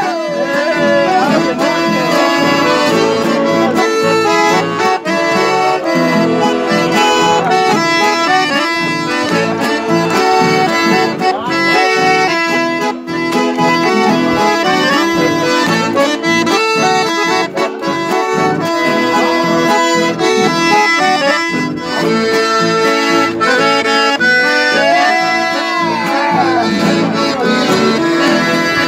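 Chamamé played live on a piano accordion: a lively, steady run of chords and melody.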